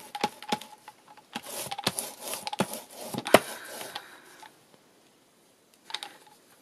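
Paint brayer rolled over wet acrylic paint on craft card: several rough rolling strokes with sharp clicks and taps, stopping a little over four seconds in.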